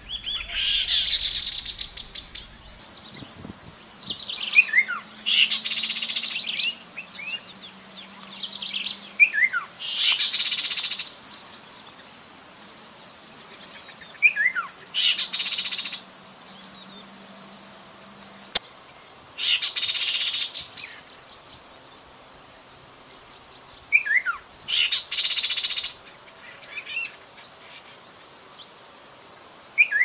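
Chestnut-capped babbler singing: about six phrases, roughly every five seconds, each a few short falling whistled notes that lead into a fast trill.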